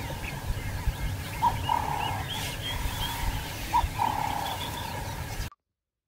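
Outdoor bush ambience: birds chirping and calling, two longer buzzy calls among them, over a low rumble. It cuts off abruptly near the end into silence.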